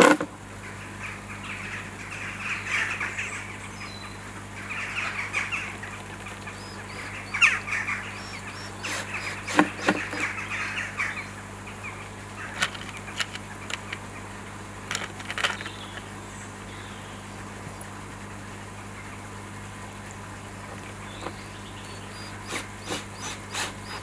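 Screws being driven by hand with a screwdriver into a pond skimmer's faceplate, a run of rasping, squeaky turning strokes with light clicks of the tool, easing off in the second half.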